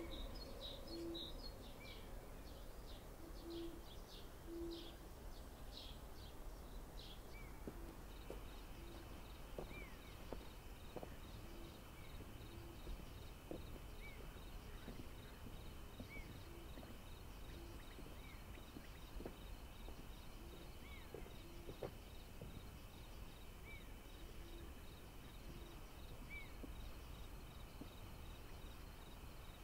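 Quiet countryside ambience: birds chirping, repeated low hoots and small rising calls every couple of seconds, over a low rumble. From about eight seconds in, a steady high insect drone joins them.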